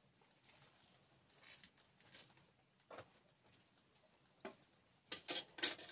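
Scattered short rustles and snips of leafy greens (parsley and collard greens) being handled and cut with a knife held in the hand, with a quick run of them near the end.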